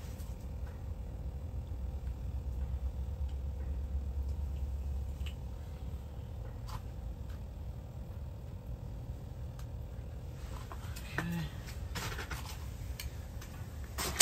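Low steady rumble of wind on the microphone, with scattered faint clicks and a few short scrapes that come more often near the end.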